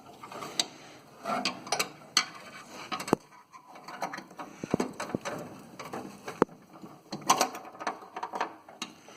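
Irregular metal clicks, clinks and scrapes as a spring and hand tools are worked against the steel under a riding mower's cutting deck while trying to hook the blade-engagement cable's spring into its hole.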